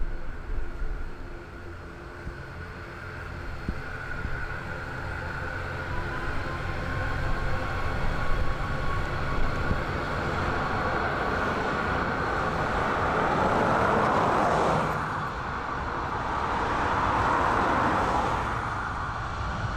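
Boeing 737 MAX's CFM LEAP-1B turbofan engines at takeoff thrust as the jet accelerates down the runway: a steady rumble and hiss with a faint whine, growing louder as it comes closest.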